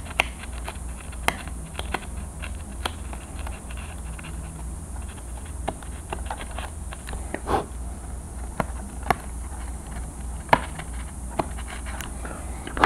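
Hobby knife blade working back and forth in a slot in a foam wing, giving irregular small clicks and scratches, a few louder ones near the middle and the end, over a steady low hum.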